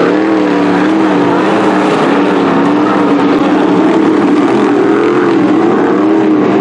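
A pack of dirt-track sportsman modifieds racing, their GM 602 crate V8 engines running hard. Several engine notes overlap, their pitch rising and falling.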